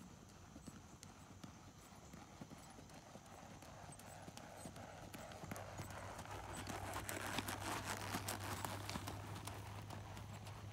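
A ridden horse's hoofbeats on a sand arena. They grow louder as it approaches and are loudest about seven to nine seconds in.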